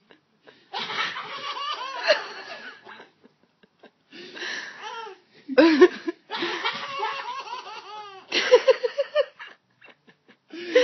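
A baby girl laughing hard in several bouts, with short breaks between them, the longest near the end.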